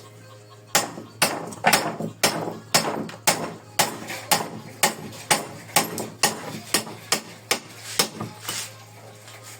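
Hammer striking steadily, about two blows a second, some eighteen in all, knocking a motorcycle camshaft's shaft end to drive its worn bearing off.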